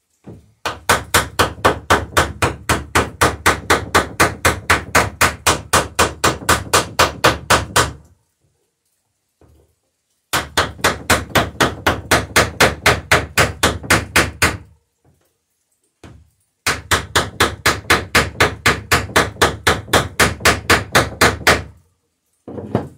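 Small ball-peen hammer tapping rivets in a wooden boat's planking, fast and even at about five strikes a second. There are three long runs of taps with short pauses between them, and a couple of single knocks near the end.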